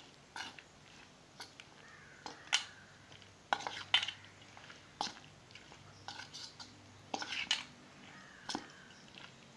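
A metal spoon knocking and scraping against a stainless steel bowl while stirring shredded bamboo shoots into a thick rice batter. It comes in irregular clinks and scrapes, loudest about two and a half, four and seven and a half seconds in.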